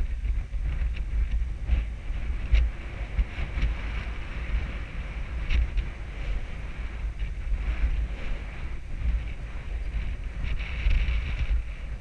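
Wind buffeting an action camera's microphone during a horseback ride, a steady low rumble with hiss, broken by scattered light clicks and knocks.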